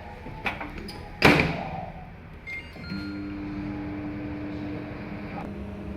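LG microwave oven door shut with a loud knock about a second in, followed by a couple of short keypad beeps. The oven then starts and runs with a steady hum.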